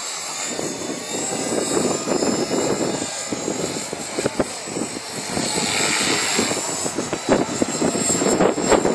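Electric 450-size RC helicopter flying 3D aerobatics: a high steady whine of motor and gears over the rush of the rotor blades, which swells and fades as it maneuvers, louder about six seconds in and again near the end.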